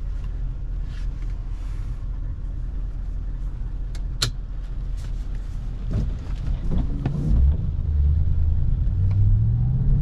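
In-cabin sound of a 2009 Audi S5's V8 engine and tyres on a wet road, steady at first, with a single sharp click about four seconds in. From about six seconds the engine note rises in pitch and grows louder as the car accelerates.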